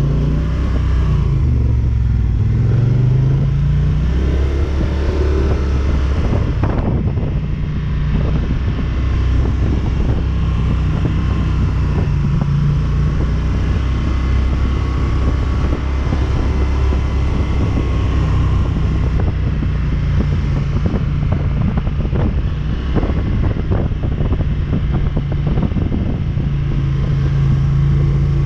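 ATV engine running while the machine rides along a trail. Its pitch dips and rises a couple of seconds in, then holds mostly steady, with scattered knocks and rattles from the ride.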